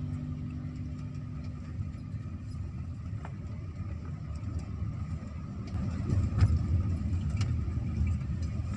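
Motor vehicle running with a steady low rumble, swelling a little in the second half, with a few faint clicks.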